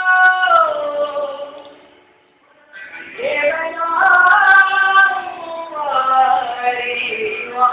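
A man singing a Hindi song in a high voice to acoustic guitar. A long held note slides down and fades out about two seconds in, and after a short pause the voice comes back on a rising note and carries on in long held lines.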